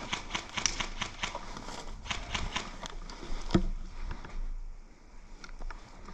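Airsoft guns firing: a fast, irregular string of sharp cracks for about three and a half seconds, with a heavier thump among them, then a few scattered shots near the end.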